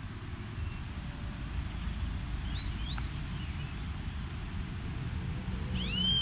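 Outdoor ambience: small birds chirping over and over in quick notes that rise and fall in pitch, with a louder arching call near the end, over a steady low rumbling background.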